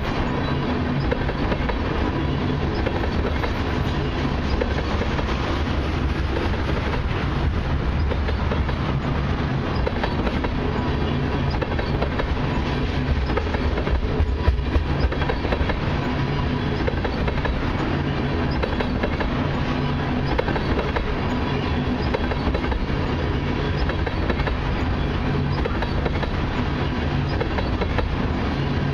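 Loaded crude-oil tank cars of a long freight train rolling past at close range: the steady noise of steel wheels running on the rails, with a few sharper knocks about halfway through.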